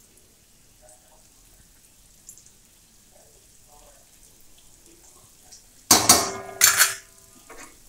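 Metal kitchenware clattering about six seconds in: two loud knocks close together that ring briefly, after several seconds of faint sounds.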